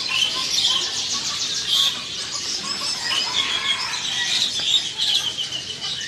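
A dense, continuous chorus of high chirps and twitters from many small caged birds calling at once.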